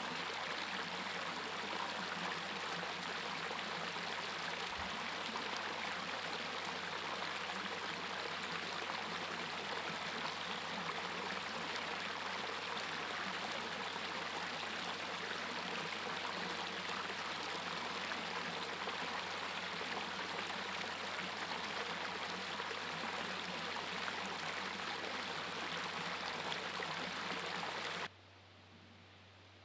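Small waterfall pouring over a rock ledge into a pool: a steady rush and splash of water. It cuts off suddenly near the end.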